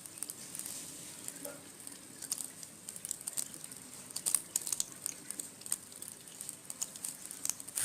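Irregular small clicks and light rustling, with a short faint tone about a second and a half in.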